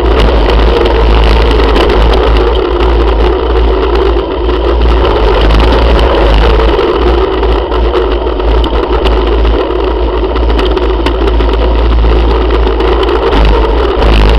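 Motorcycle engines running as the bikes pull out and ride off, heard from a camera on a moving motorcycle. Loud and steady, with a heavy low rumble of wind on the microphone.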